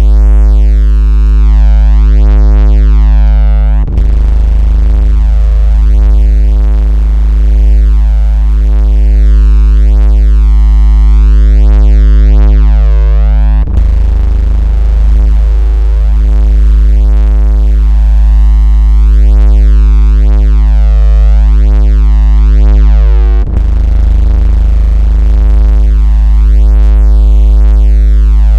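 Steady, loud 56 Hz synthesized bass tone, a deep hum with fainter overtones above it, of the kind played to make a phone vibrate or push water out of its speaker. A brief click and dip in level break it about every ten seconds.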